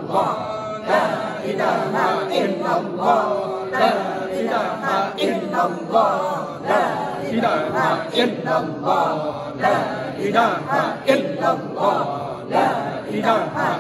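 Group prayer chant: many voices reciting together in a continuous sing-song stream, with one note held for a second or two about a second in.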